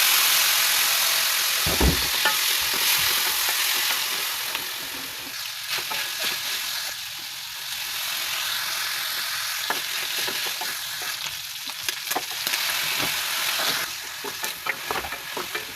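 Food sizzling in a hot pan while being stirred, with a utensil clicking and scraping against the pan. The sizzle is loudest at first and settles lower after about four seconds.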